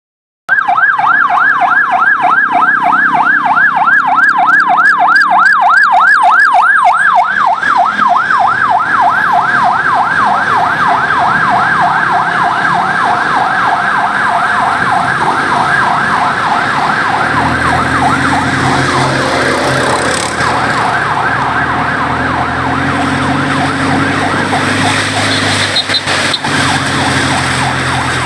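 An emergency vehicle's siren in a fast yelp, its pitch sweeping rapidly up and down several times a second, loud from about half a second in and easing a little later. A low engine rumble from road traffic joins under it about two-thirds of the way through.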